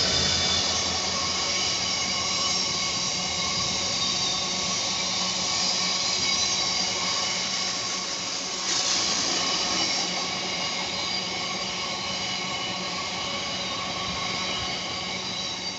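Freight train passing at speed: a GBRf Class 66 diesel locomotive goes by in the first moment, then a long string of cement tank wagons rolls past. The wagons' wheels give a steady high-pitched ringing squeal over a low rumble, easing off near the end.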